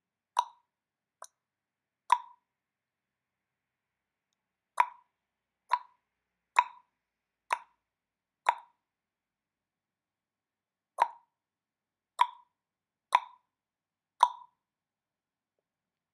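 About a dozen short, sharp plops, mostly a second or so apart with a longer pause midway, one of them faint, in dead silence between.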